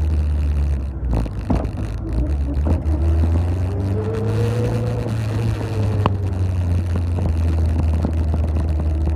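Honda Fireblade inline-four motorcycle engine in an MK Indy kit car, running at low revs with a steady low drone as the car rolls slowly along. A few faint clicks and knocks sound over it.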